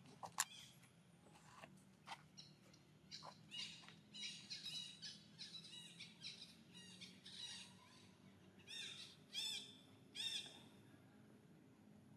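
High-pitched chirping calls in quick clusters, some arching up and down, from about three seconds in until near the end, after a few sharp clicks at the start.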